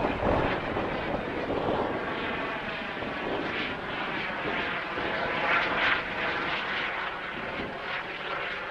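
Eurocopter EC120B Colibri helicopter flying past: steady rotor and turbine noise with a faint whine above it, loudest a little past the middle.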